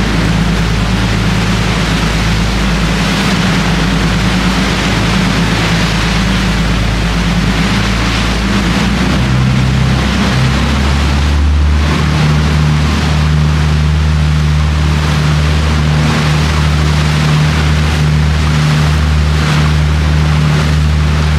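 Sightseeing boat's engine running steadily, with water rushing and splashing from the wake. About halfway through the engine note changes.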